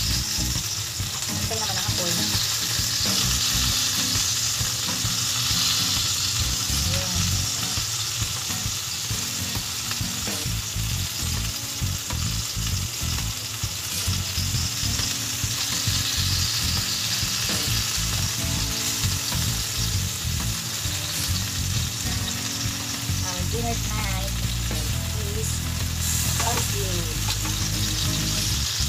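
Chicken pieces sizzling steadily on a hot round stovetop grill pan, with tongs now and then clicking and scraping on the pan as the pieces are turned.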